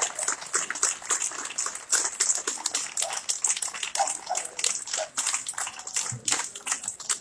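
Small crowd applauding, a dense patter of scattered hand claps.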